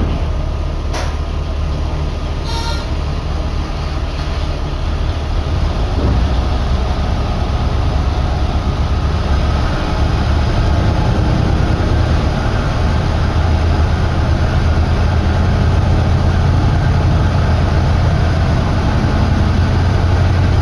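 Diesel railcar's engine heard from inside the car: a steady low drone that grows louder about six and again about ten seconds in as the train pulls away from the station. A click about a second in and a short beep between two and three seconds in.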